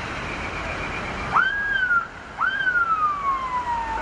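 A person whistling twice, loudly: each whistle jumps up quickly and then slides down slowly, and the second one is longer. Behind it there is a steady rumble of crowd and vehicle noise.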